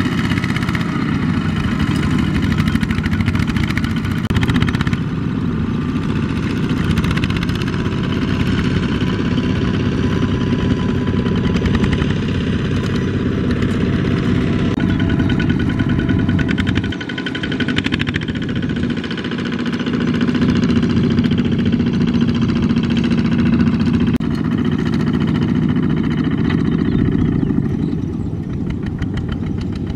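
Kubota two-wheel walking tractor's single-cylinder diesel engine running under load as it pulls a trailer loaded with rice sacks. The engine note shifts a few times and dips briefly a little past halfway.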